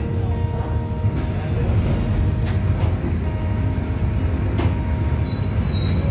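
City bus in motion heard from inside: a steady low rumble of engine and road noise, with a few short rattles from the windows and fittings.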